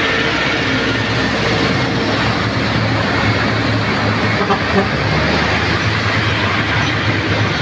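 Heavy diesel tanker trucks passing close by one after another: a steady, loud mix of low engine running and tyre and road noise.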